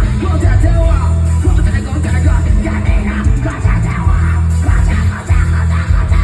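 Loud amplified music with heavy, continuous bass and a singing voice over it, from a procession sound system.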